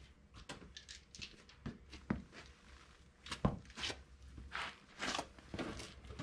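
Scattered clicks, knocks and scrapes of hands and tools working at a car's bare wheel hub, with one sharper knock about three and a half seconds in.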